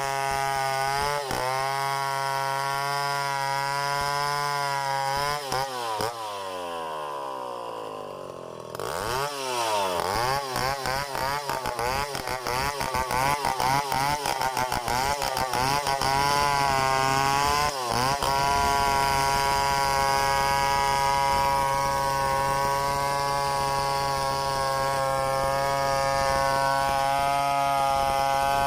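Stihl 070 two-stroke chainsaw running at high revs while freehand milling mahogany. About six seconds in it drops in pitch toward idle, then revs back up, its pitch wavering until it settles into steady full throttle from about eighteen seconds on.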